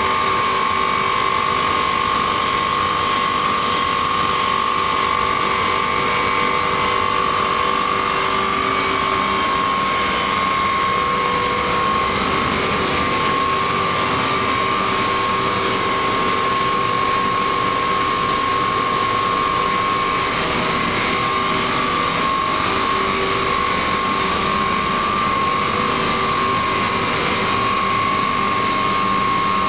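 Industrial boiler-house plant running: a boiler's burner and its fan motor giving a loud, steady mechanical noise with a constant high whine over it.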